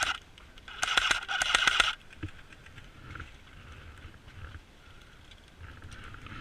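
Airsoft rifle firing one burst on full auto, a rapid string of shots over a mechanical whine, lasting a little over a second about a second in, right after an earlier burst stops.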